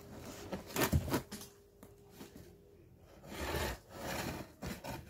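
Hands and scissors working at a cardboard firework box: a couple of knocks about a second in, a short pause, then scraping and rubbing as the box is turned and worked at with the scissors.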